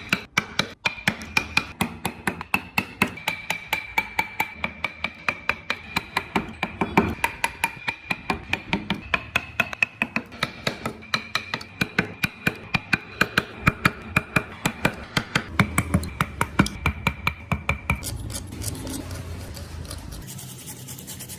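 Background music with a fast, even percussive beat of about four clicks a second over a held high note; near the end the beat stops and a softer, hissing sound takes over.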